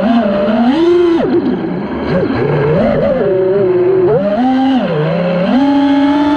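5-inch FPV quadcopter's brushless motors (Emax Eco 2306 1700kv spinning 5-inch props) whining, the pitch rising and falling with throttle. It drops sharply about a second in, climbs again, dips near the middle and holds high near the end.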